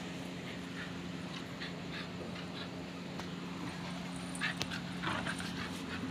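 Pit bull puppy scuffling and tugging at a belt on a concrete floor: scattered short scuffs and scrapes, busiest about four and a half seconds in, over a steady low hum.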